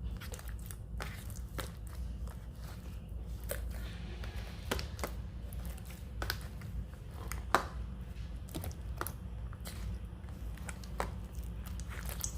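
Glue slime being mixed as added water is worked in: irregular soft squelches and sticky clicks.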